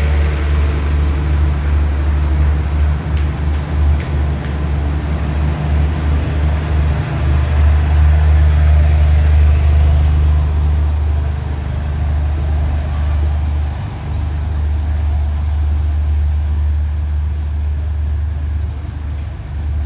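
State Railway of Thailand passenger train pulling out of the station, its carriages rolling past with a steady low rumble and a few clicks of wheels over rail joints. The rumble is loudest about halfway through and eases toward the end as the last coach draws away.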